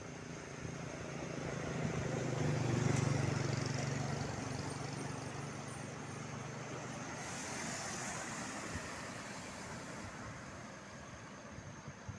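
A motor vehicle drives past on the road, its engine growing louder to a peak about three seconds in and then fading away, over steady traffic noise.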